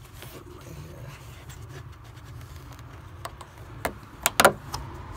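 Hand and fingers rubbing close to the phone's microphone over a steady low rumble, with a few sharp clicks from about three seconds in, the loudest pair near four and a half seconds.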